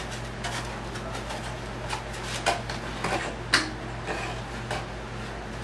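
Light taps, clicks and rustles of a foam model airplane being handled and turned over, the sharpest tap about three and a half seconds in, over a steady low hum.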